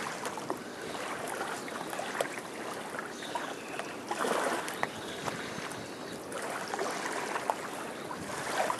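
River water lapping and trickling at the bank, a steady wash that swells briefly about four seconds in.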